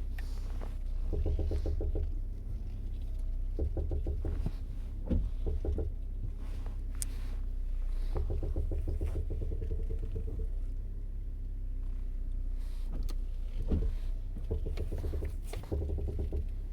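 2006 Toyota Camry LE's steering or front suspension clunking: about five short bursts of rapid, evenly repeated knocking, with a few single sharp knocks, over a steady low hum. It is the clunk the owner complains of when steering and over bumps.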